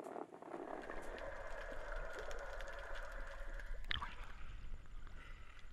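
Sea water ambience: a low rumble with watery gurgling, and one short falling squeak about four seconds in.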